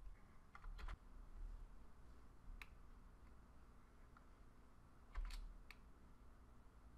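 Near silence broken by about five faint clicks of computer keys, two near the start, one in the middle and a slightly louder pair about five seconds in.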